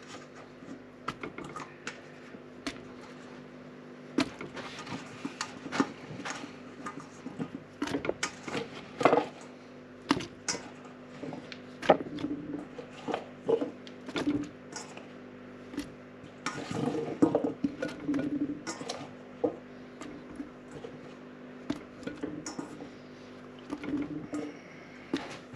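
Cut potato chunks being handled out of a stainless-steel bowl and dropped into an Afghan kazan: irregular soft taps, knocks and clinks of hands and potatoes against the metal bowl and pot, over a steady background hum.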